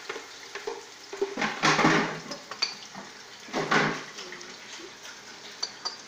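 Cookware being handled on a stovetop, pans and utensils clattering, with two louder noisy bursts, one about a second and a half in and one near four seconds.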